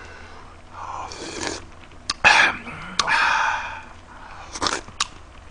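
Slurping a spoonful of hot kimchi-jjigae stew broth, in several short breathy bursts, with a few small sharp clicks.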